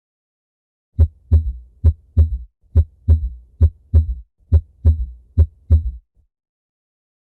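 Recorded heart sounds heard through a stethoscope: six lub-dub beats at about 70 a minute, starting about a second in. This is an S3 gallop, a low extra sound just after the second heart sound.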